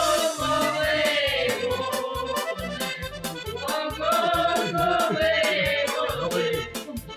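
Music: a singing voice with a gliding, ornamented melody over a fast, steady beat.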